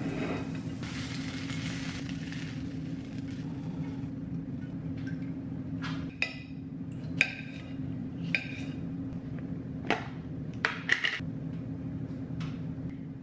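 Metal kitchen tongs clicking and clinking against a ceramic plate as food is served onto it: a few sharp, ringing clinks spread over the second half. A steady low hum runs underneath, with a soft hiss in the first few seconds.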